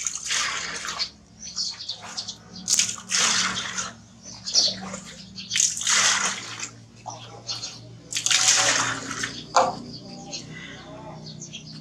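Water poured from a plastic scoop into a plastic washbasin, splashing in about four separate pours a couple of seconds apart.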